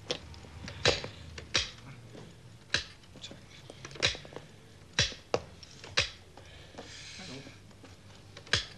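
Chess pieces and a chess clock being struck hard in a fast game: about nine sharp knocks at uneven intervals, roughly one a second.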